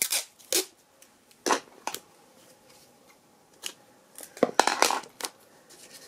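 Sellotape being pulled off the roll and torn, a series of short scratchy bursts with the loudest, busiest stretch about four to five seconds in.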